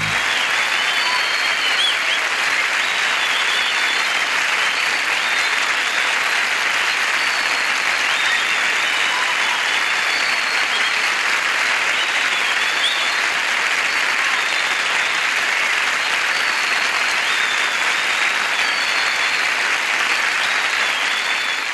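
Audience applauding steadily right after a song ends.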